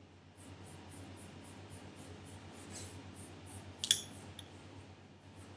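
Faint, rapid high ticking, about four a second, and one sharp click with a short ringing tail about four seconds in.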